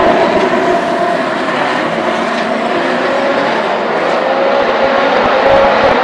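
A pack of Ferrari 458 Challenge race cars with their naturally aspirated V8 engines running together at racing speed: a loud, continuous blend of engine notes whose pitches drift up and down.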